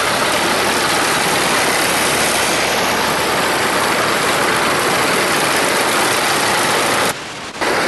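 Tor air-defence missile vehicle on its tracked chassis driving past close by: loud, steady engine and track noise. The sound drops out sharply for about half a second near the end.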